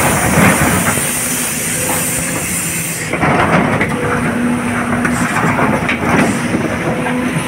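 SANY excavator engine and hydraulics running under load, heard from the operator's cab, as the bucket teeth scrape and dig into broken quarry rock, with irregular rock clatter and grinding.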